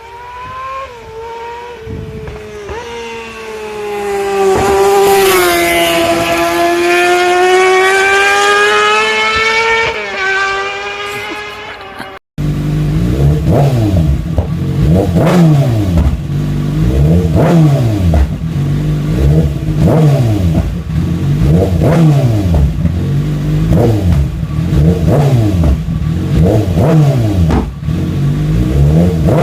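2015 Kawasaki ZX-6R 636's inline-four engine running through a full Yoshimura R11 exhaust system. At first the engine note is held, dipping in pitch and climbing back. After a cut, the throttle is blipped over and over, about once every two seconds, each rev rising and falling back.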